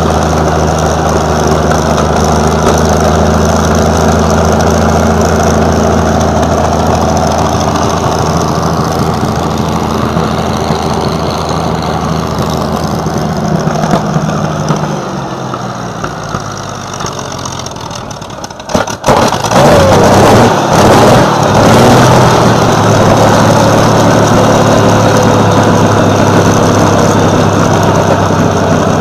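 M47 Patton tank's Continental AV-1790 air-cooled V12 petrol engine running at idle on a stand shortly after a cold start, a loud, steady low rumble. The sound dips a little past the middle and comes back louder after a sharp break about two-thirds of the way through.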